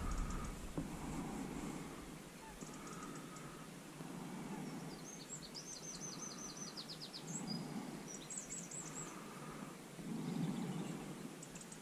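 Faint outdoor background noise, with a small bird giving a quick run of high chirping notes about halfway through and a shorter burst of chirps soon after.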